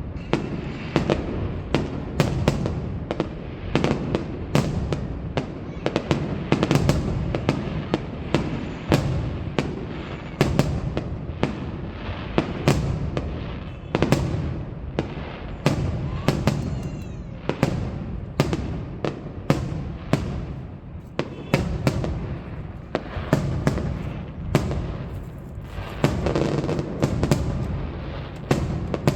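Aerial fireworks display: a dense, unbroken string of sharp bangs and booms, several a second, over a low rumble.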